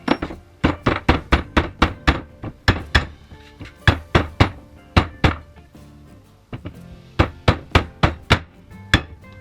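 Hammer blows, struck in quick runs of several hits with a short pause partway through, over background music.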